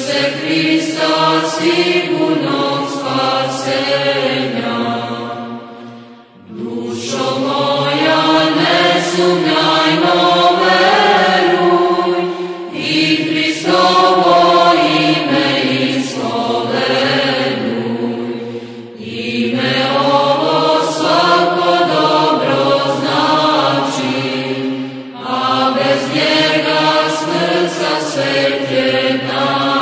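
Orthodox church chant sung by a choir in long phrases of about six seconds each, with short pauses between them.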